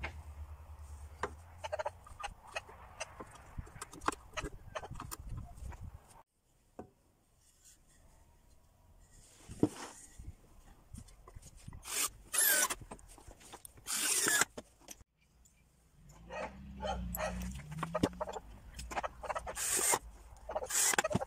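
Clicks, knocks and rubbing of wooden boards, plastic and metal parts being handled and fitted together while building a circular-saw miter-saw rig. The sounds come in several separate stretches, broken by two abrupt drops to near silence, with a few louder sharp knocks in the second half.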